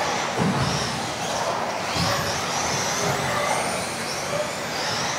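Electric RC off-road buggies with brushless modified-class motors racing on an indoor track: high motor whines rising and falling in pitch as the cars accelerate and brake, over tyre noise in an echoing hall. A couple of dull knocks come through, about half a second in and again near two seconds.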